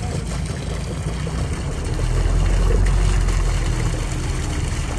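Engine of a river ferry barge running with a steady low rumble that grows louder about two seconds in, over the wash of the water.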